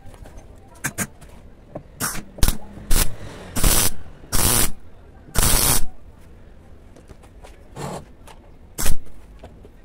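MIG welder tack-welding a steel fuel-tank strap: a few short ticks as the arc strikes, then three crackling bursts of about half a second each and one more short burst near the end.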